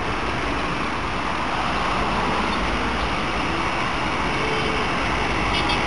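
Steady city road traffic noise: an even rush of passing vehicles with no distinct horns or events.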